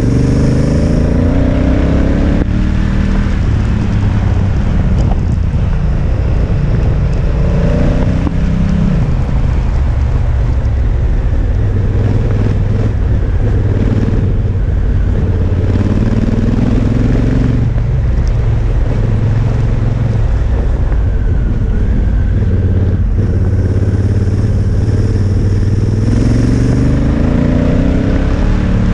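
Honda Africa Twin motorcycle engine running at riding speed, its pitch climbing and dropping several times with the throttle and gear changes. Steady wind and road noise runs underneath.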